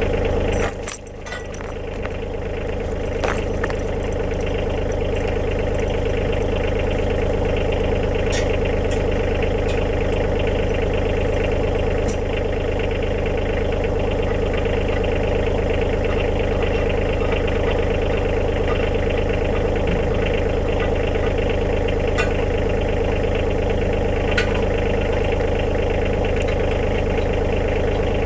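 Kioti DK35SE compact tractor's diesel engine running steadily at idle. A sharp knock about a second in, after which the engine sound dips and builds back up over a few seconds, with a few faint clicks later on.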